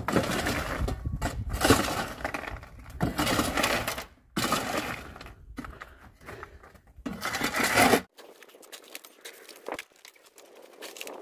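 A shovel scraping into gravel in a pickup truck bed and tossing it out onto a pile: about four loud, crunching scoops in the first eight seconds. The sound then drops suddenly to faint scrapes.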